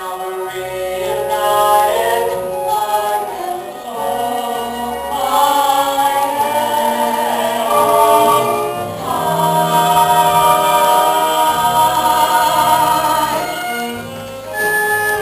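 Stage-musical ensemble singing with accompaniment: many voices holding sustained notes together. It swells louder about halfway through and eases back near the end.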